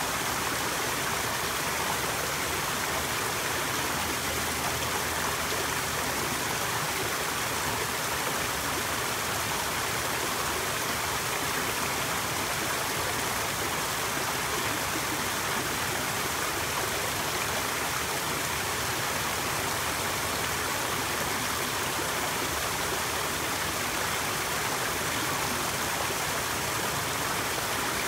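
Water spilling over the stone ledges of a small garden waterfall and splashing into the pool below, a steady, even splashing with no change.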